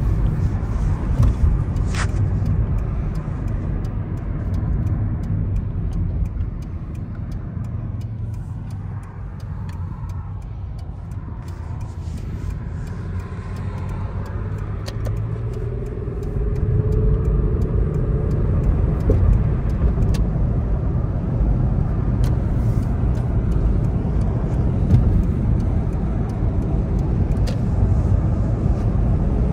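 Car driving, heard from inside the cabin: a steady low engine and road rumble that eases off in the middle and grows louder again from about halfway through.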